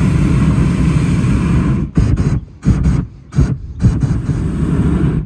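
Hot air balloon's propane burner firing: a long steady blast, then several short bursts from about two seconds in, cutting off just before the end.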